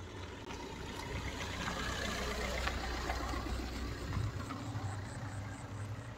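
Suzuki Swift hatchback driving slowly past on a dirt track, its engine running low and steady over the noise of its tyres on the dirt.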